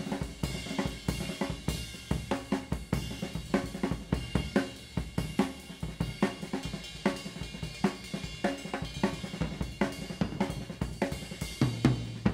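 Live rock drum kit solo: fast, busy snare, tom and bass drum strokes over a steady wash of hi-hat and cymbals, heard on a soundboard recording.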